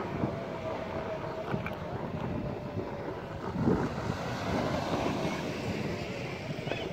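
Wind buffeting the microphone over the rumble of a Ninebot electric scooter's tyres rolling on a concrete walkway, with a faint steady whine that fades out about a second and a half in.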